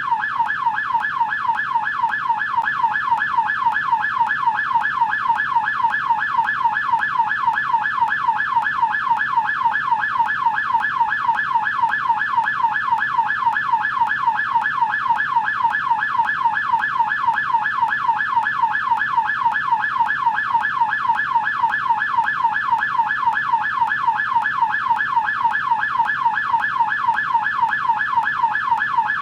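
American police siren on its yelp setting: a rapid rising-and-falling wail repeating several times a second, steady and unbroken.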